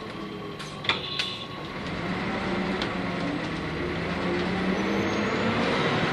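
Nissan Diesel UA city bus's PU6 natural-gas engine pulling under acceleration, heard from inside the passenger cabin; the engine note and loudness rise steadily after about two seconds. A couple of sharp clicks or rattles come about a second in.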